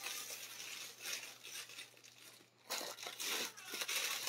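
Clear plastic packet of fabric crinkling and rustling as it is handled, with a short break about two and a half seconds in.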